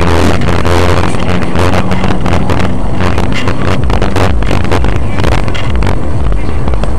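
Car interior driving noise picked up by a dashboard camera: a steady engine and road drone with wind noise on the microphone and many short knocks and rattles.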